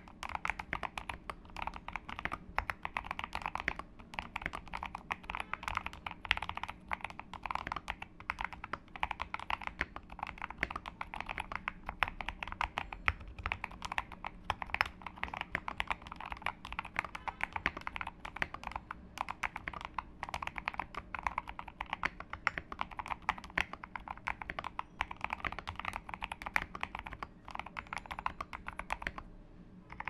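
Steady, fast typing on an Akko ACR67 acrylic-case mechanical keyboard with 67 g Zealios V2 tactile switches, lubed with 205g0 and filmed, on an FR4 plate with bubble wrap under the PCB and lubed, clipped stabilizers. The keystrokes run as a dense, irregular clatter and stop about a second before the end.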